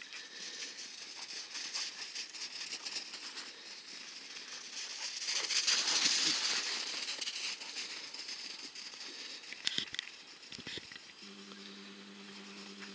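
Footsteps crunching and crackling through snow, loudest about six seconds in, with a few sharp ticks. A steady low hum comes in near the end.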